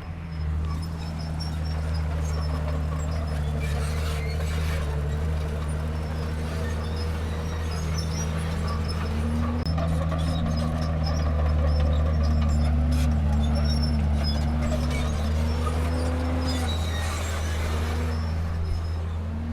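Komatsu D31P bulldozer's diesel engine running steadily under working load, its pitch wavering up and down as the load changes, with faint scattered clinks over it.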